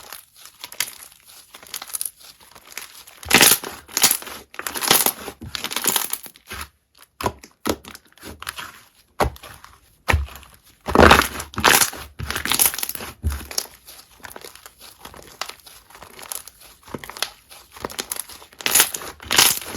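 Slime being squeezed, poked and stretched by hand close to the microphone: a run of irregular squishy, crackly bursts, loudest about three and eleven seconds in.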